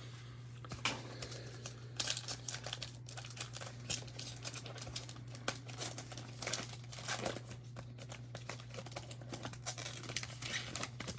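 Foil wrapper of a football trading-card pack crinkling and tearing as the pack is ripped open and handled, with many small crackles throughout. A steady low hum runs underneath.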